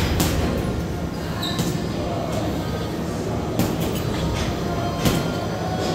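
Gym background music over a steady rumble of room noise, with a few short sharp knocks, about four in all.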